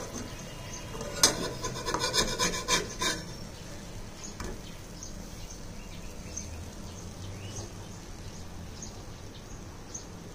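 Jackfruit pancakes frying on a flat iron pan: a steady hiss with faint scattered crackles. About a second in there is a burst of scraping and rubbing that lasts about two seconds.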